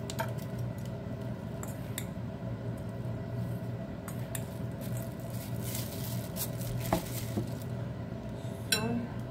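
Kitchen handling sounds as salt is added to meat in a ceramic bowl: a plastic bag rustling and a spoon clinking a few times against dishes and a glass jar, over a steady low hum.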